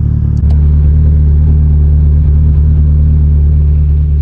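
Mitsubishi Lancer Evolution X's turbocharged 2.0-litre four-cylinder running steadily, a low drone heard inside the cabin. A short click about half a second in, after which the drone is louder.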